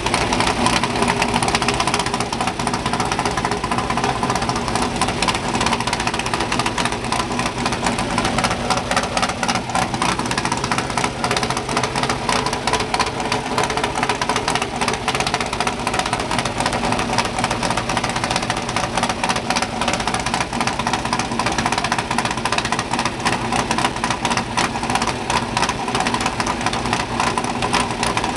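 Trophy Truck's race engine idling loudly and steadily, with a rapid, rough pulsing beat and no revving.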